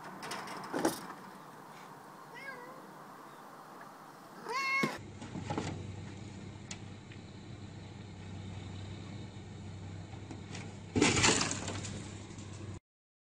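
A domestic cat meows, faintly about two and a half seconds in and loudly near four and a half seconds, after a short knock about a second in. After a cut, a loud thump and scrape about eleven seconds in.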